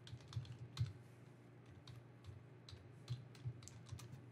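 Typing on a computer keyboard: irregular runs of faint key clicks, thickest in the first second and again around three seconds in.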